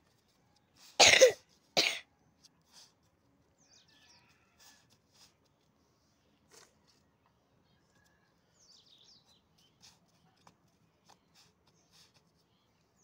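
A person coughs twice, a harsh cough about a second in and a shorter one right after it. Faint bird chirps follow.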